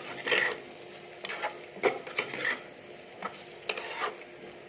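Metal spatula scraping and knocking against a metal kadai in irregular strokes as poha (flattened rice) with peas and potato is stirred and mixed.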